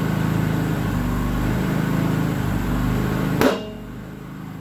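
Tire being inflated on a tire changer: a steady rush of air over a machine hum, then, about three and a half seconds in, the top bead seats on the rim with one sharp, loud pop, after which the sound drops to a quieter hum.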